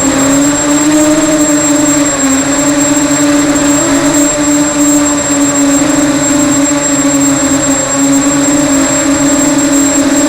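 Small multirotor drone's electric motors and propellers buzzing steadily, the pitch wavering a little up and down with throttle, with a thin high steady whine above it.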